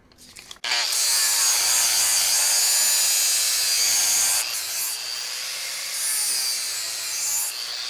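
Power grinder grinding metal off a bench vise. It starts suddenly about a second in and runs steadily, growing a little quieter just past the middle.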